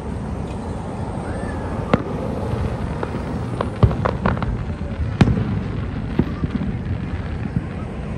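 Aerial fireworks shells bursting: scattered sharp bangs and crackles, a quick cluster about four seconds in and the loudest bang about five seconds in, over a steady low background rumble.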